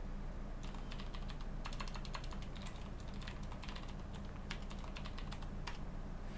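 Typing on a computer keyboard: quick, uneven runs of key clicks with short pauses between them, over a steady low hum.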